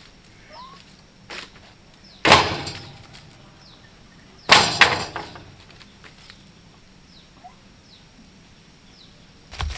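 Two heavy knocks about two seconds apart, each with a short fading tail, among a few light clicks and faint bird chirps.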